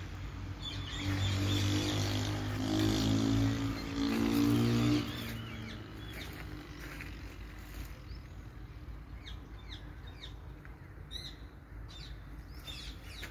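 A low, drawn-out animal call, wavering in pitch, for about the first five seconds, then faint bird chirps.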